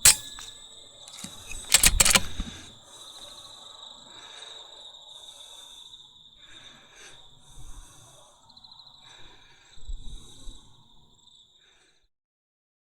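A steady high-pitched chirring of night insects, likely crickets. It is broken by a sharp click at the start and a cluster of loud knocks and rustling about two seconds in, like gear being handled. Softer rustles follow, then all sound cuts off abruptly near the end.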